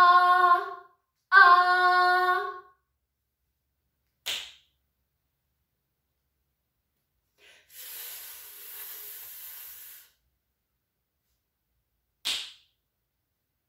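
A woman twice voicing the short 'o' letter sound, each held for about a second, then a single finger snap. Then a long 'fff' hiss, the letter sound of F, lasting about two seconds, and a second finger snap near the end.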